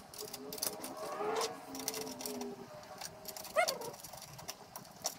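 Light clicks and clinks of metal spreader parts and tools being handled, with a brief rising whine about three and a half seconds in.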